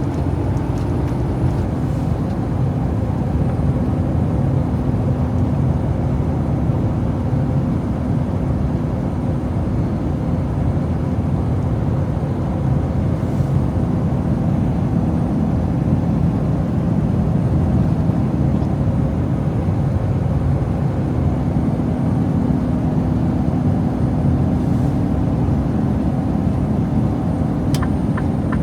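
Steady noise of a semi truck heard from inside the cab while driving: diesel engine drone with road and tyre noise, and a steady hum. A quick run of regular ticks starts near the end.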